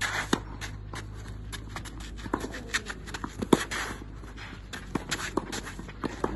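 Tennis balls struck by rackets and bouncing during a rally on a clay court: a handful of sharp pops at irregular intervals, the loudest about halfway through, with the scuff of shoes on the clay.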